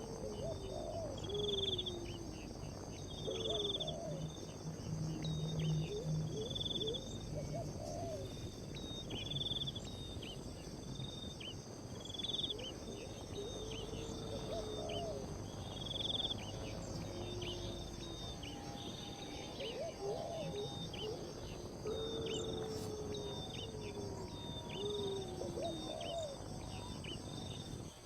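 Outdoor natural ambience: a steady high insect drone, with many short high chirps repeating throughout and lower sliding calls now and then.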